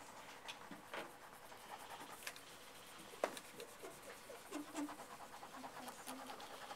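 Faint taps and scratches of a pen on an interactive whiteboard as groups are marked on a grid, with a few sharper taps scattered through.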